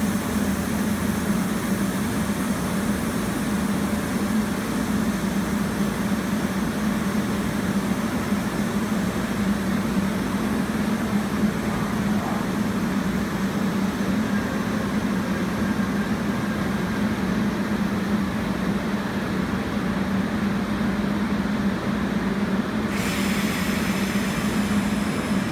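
Seoul Metro Line 1 resistance-control electric train standing at the platform, its roof air-conditioning and on-board equipment giving a steady low hum with a hiss over it. The hiss cuts off suddenly near the end.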